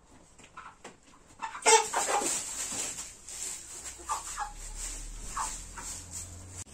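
Chickens clucking, a scatter of short calls with the loudest about two seconds in.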